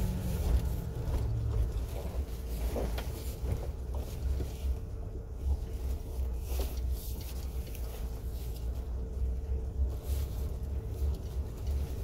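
A truck's engine running and its tyres on a concrete road, heard from inside the cab as a steady low drone while it drives slowly along.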